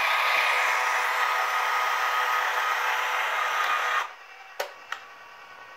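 A 1978 Nikko radio-controlled truck's small electric drive motor and gears whirring steadily as it drives, with a faint steady whine. The motor cuts off sharply about four seconds in, followed by two short clicks.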